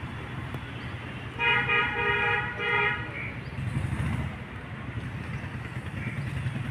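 A vehicle horn honks twice about a second and a half in, first a longer blast and then a short one, over a steady rumble of passing road traffic.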